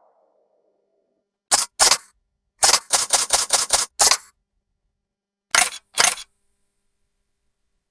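Camera shutter clicks: two single shots, then a rapid burst of about seven at roughly five a second, then two more single shots.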